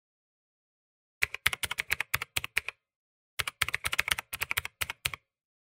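Typing sound effect: two quick runs of keystroke clicks, each a second and a half to two seconds long, with a short pause between.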